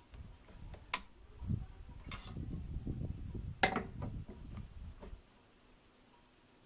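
Rustling handling noise with three sharp mechanical clicks, about a second in, a little after two seconds and, loudest, at about three and a half seconds. The noise stops a little after five seconds.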